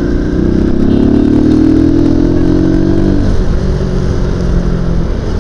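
Euro Marvel 130i scooter engine under way. It pulls with a slowly rising pitch, then drops back about three seconds in as the throttle eases and settles lower, over a low wind rumble.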